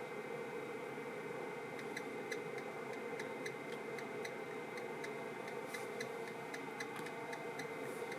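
Steady low hum and hiss with a light, regular ticking, about three ticks a second, that starts about two seconds in.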